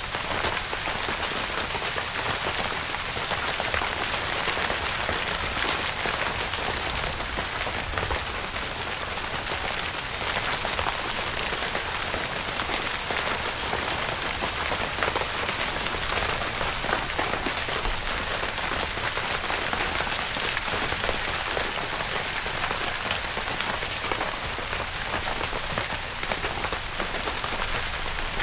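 Steady rain falling on a tent: a dense, even hiss made of many small drop taps.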